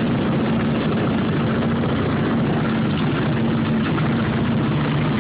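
11 hp snowblower engine running at a steady speed, a constant even drone with no change in pitch.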